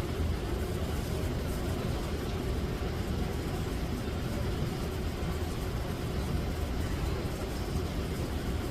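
Steady low rumble with a faint hiss, unchanging throughout, with no distinct events.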